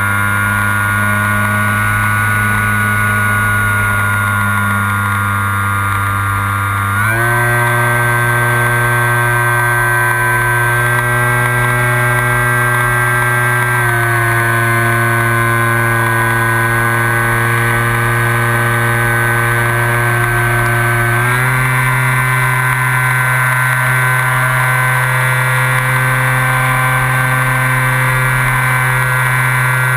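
Skywalker FPV model plane's electric motor and propeller heard through the onboard GoPro, a steady whine in flight that steps up in pitch with the throttle about a quarter of the way in, dips slightly near halfway and steps up again about two-thirds in.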